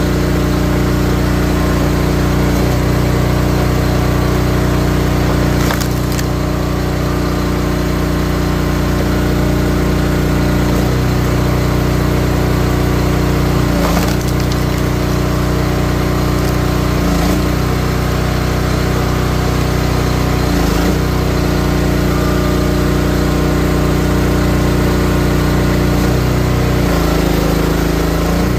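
Gas-engine log splitter running steadily while rounds are split, the wood cracking and splintering several times at intervals of a few seconds.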